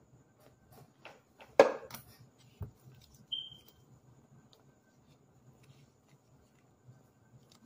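A block of baked cornstarch being crunched by hand: one sharp, loud crunch about one and a half seconds in, with a few smaller crackles around it, then a low knock about a second later. A brief high squeak follows, and after that it is mostly quiet.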